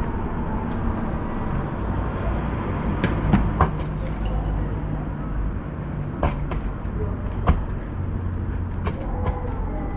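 Scattered sharp taps and clicks, typical of birds' beaks pecking at a feeder dish of seeds and kibble, over a steady low rumble of wind and city background.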